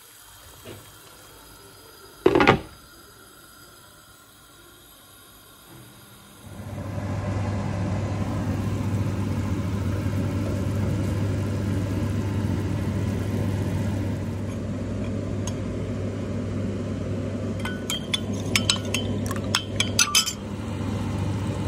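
Kitchen cooking sounds: a single clank of a utensil, then a steady low hum and noise sets in about six seconds in, with a quick run of metal clinks against a pot near the end.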